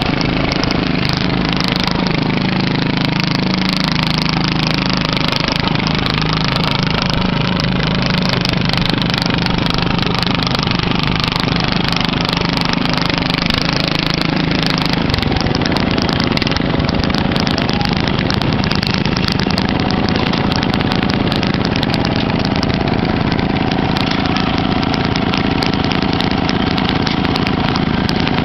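Riding lawn mower engines running steadily, the engine note changing about halfway through.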